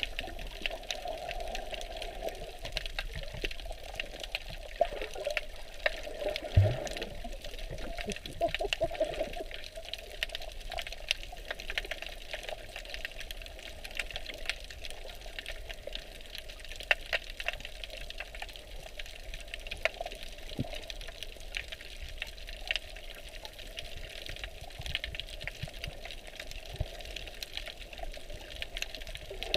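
Underwater reef ambience heard through a GoPro's waterproof housing: a muffled steady wash with frequent sharp clicks and crackles, and one low thump about six and a half seconds in.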